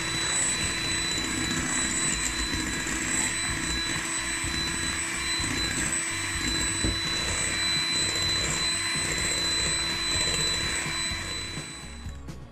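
Electric hand mixer running steadily at a constant speed, with its twin beaters whisking a runny batter in a glass bowl, giving a steady motor whine with a high ringing tone. It fades out near the end.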